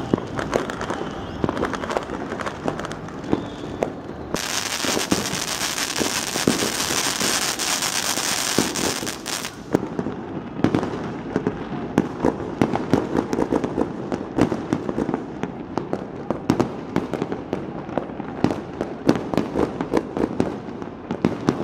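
Fireworks and firecrackers going off across a city: an unbroken, irregular rattle of bangs and pops. About four seconds in, a denser stretch of rapid crackling and hiss starts abruptly and lasts about five seconds.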